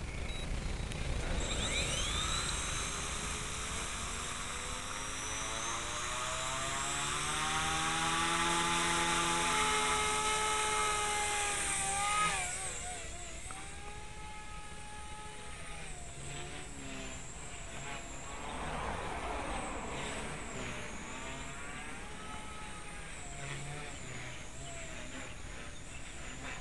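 Blade 130X micro RC helicopter flying on an AEO Hummingbird 8000 kV brushless main motor, its rotor and motor whine rising in pitch over the first few seconds and holding steady. About halfway through, the whine drops in level and pitch and then wavers up and down as it flies.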